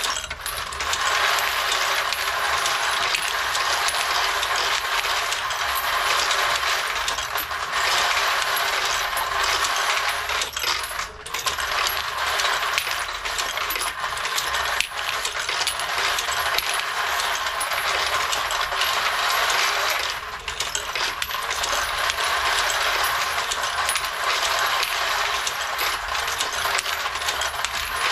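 9mm brass cartridge cases clinking and clattering steadily as a headstamp sorting machine feeds them and drops them into its bins, with a few brief lulls.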